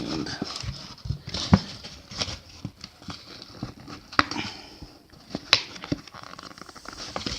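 Stiff plastic blister packaging crinkling and clicking as it is handled and pried at, with a few sharp snaps scattered through.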